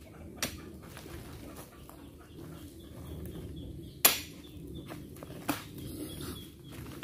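Oil palm fruit bunches being loaded by hand with a spiked pole into the tipped-up steel bed of a dump truck: three sharp knocks with a short ring, the loudest about four seconds in, over a faint outdoor background.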